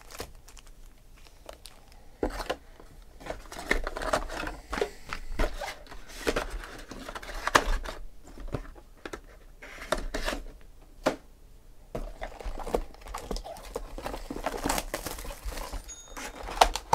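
Foil trading-card pack wrappers crinkling and tearing as packs are opened and handled, in irregular bursts of crackling and sharp clicks with short pauses. Near the end a cardboard hobby box is picked up and handled.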